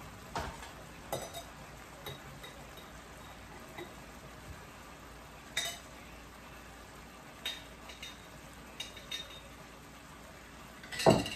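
Light, scattered clinks and taps of a glass jar and a metal spoon being handled on a kitchen counter, a few seconds apart, with a louder clink near the end.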